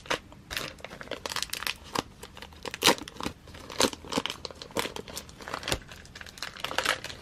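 Tight plastic album sleeve crinkling and tearing as the album is pulled out of it, in irregular sharp crackles, the loudest about three seconds in.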